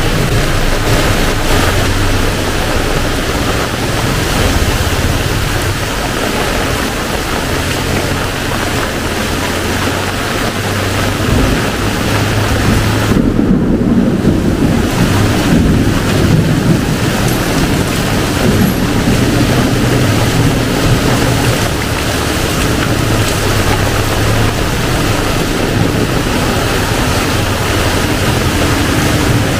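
Heavy tropical downpour: a loud, steady hiss of rain. About thirteen seconds in, the hiss briefly dulls and a lower rumble swells for several seconds.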